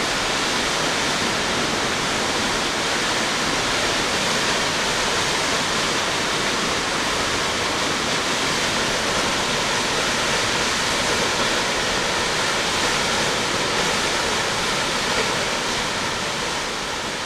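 A 177-foot waterfall rushing steadily, a dense even roar of falling water that starts to fade down near the end.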